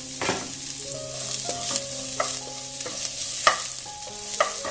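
Chopped onion sizzling in hot coconut oil with chana dal, urad dal and cumin seeds in a nonstick pan, stirred with a wooden spatula. The spatula scrapes and taps the pan a few times over the steady sizzle.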